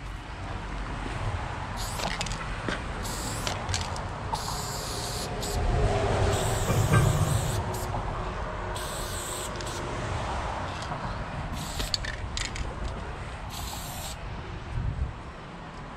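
Aerosol spray-paint can fitted with a New York fatcap, spraying in repeated bursts of hiss, each from a moment to about a second long. A low rumble swells in the middle and is briefly the loudest sound.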